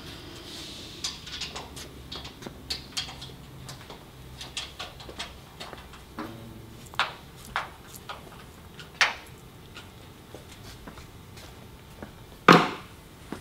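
Phillips screwdriver driving bolts into a sheet-metal display panel: scattered light metallic clicks and taps, with one louder knock near the end.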